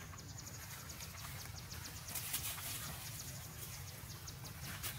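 Forest ambience with a rapid, high-pitched chirping pulse over a low steady hum. A brief louder rustle comes a little past two seconds in and another near the end.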